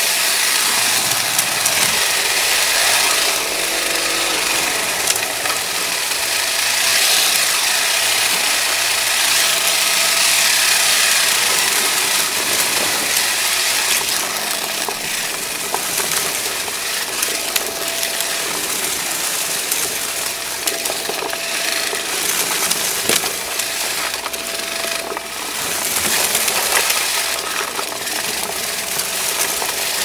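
Shark vacuum running over carpet: a steady, loud rush of air from the motor, with frequent ticks and rattles of confetti and grit being sucked up through the nozzle.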